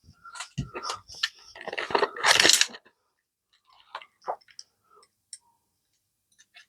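An adjustable spanner being handled, metal on metal, while its maximum jaw opening is checked. A run of clinks and rattles fills the first three seconds and is loudest near the end of that run. A few light ticks follow.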